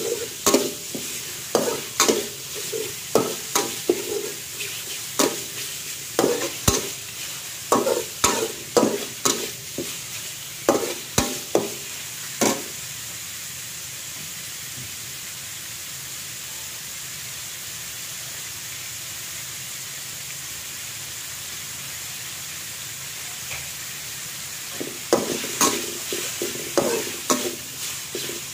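Metal spatula scraping and tossing minced meat around a metal wok in quick strokes, over a steady sizzle of frying. The stirring stops for about twelve seconds midway, leaving only the sizzle, and starts again near the end.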